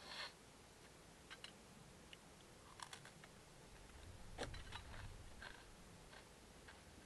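Faint, scattered clicks of a fork against a plate as a salad is eaten, a few clicks coming close together about halfway through over a brief low rumble.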